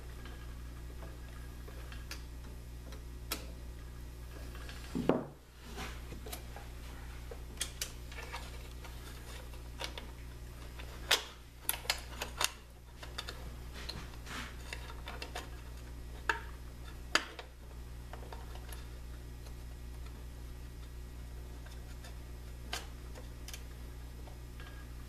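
Scattered small clicks and taps of hands working the wiring and connectors inside an opened espresso machine, with a louder knock about five seconds in, over a steady low hum.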